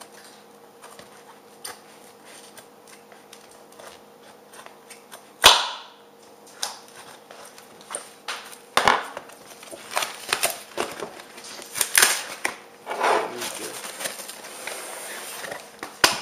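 A cardboard shipping box being opened by hand: a sharp knock about five and a half seconds in, then a run of short scrapes and rustles of cardboard and packing tape through the second half.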